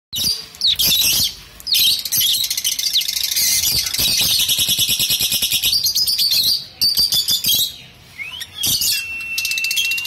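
Fischer's lovebirds chattering: rapid, high-pitched chirps in dense bursts with short pauses, and one drawn-out whistle near the end.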